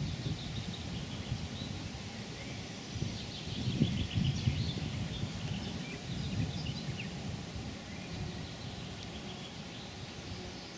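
Small birds chirping in short, repeated calls over a low, uneven rumble that swells about four seconds in.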